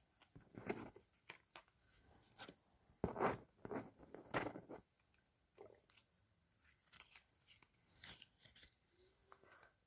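Foil wrapper of a trading-card booster pack being torn open and crinkled, in short scattered rustles, the loudest about three and four and a half seconds in.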